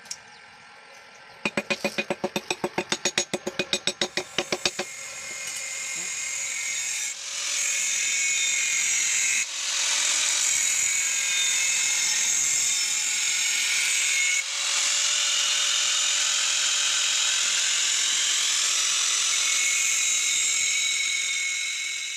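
A chipping hammer rapping slag off a fresh weld on steel plate, about six quick strikes a second for a few seconds. Then an electric angle grinder spins up and grinds the steel plate, a steady high-pitched grinding with two brief dips.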